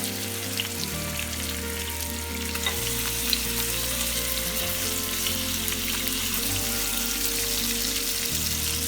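Rohu fish pieces rubbed with turmeric and salt sizzling steadily as they fry in hot oil.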